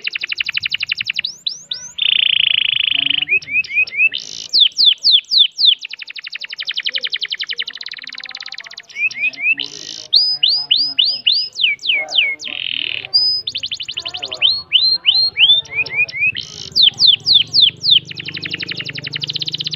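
Domestic canary singing a long unbroken song: fast rolling trills alternate with runs of quick, downward-sweeping whistled notes, each phrase repeated for a second or two before switching to the next.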